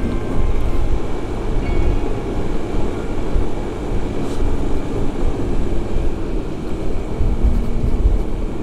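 Automatic scooter's engine running steadily while riding up a steep hill, with heavy wind rumble on the microphone.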